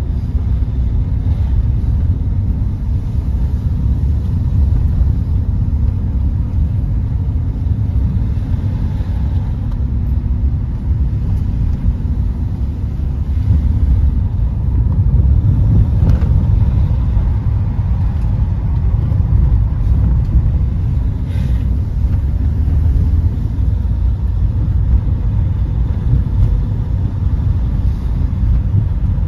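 Car engine and tyre rumble heard from inside the cabin while driving: a steady deep rumble that swells a little from about fourteen seconds in.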